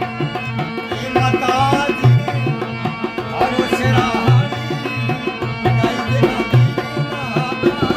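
Rajasthani Manganiyar folk devotional song: steady held notes over a beating hand drum, with a sung melody rising and falling in phrases above them.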